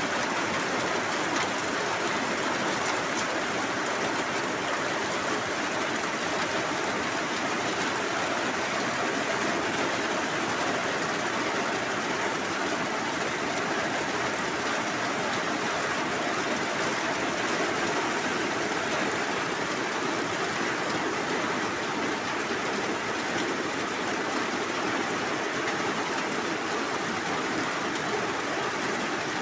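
Very heavy rain pouring down onto corrugated metal roofs, a dense, steady hiss that does not let up.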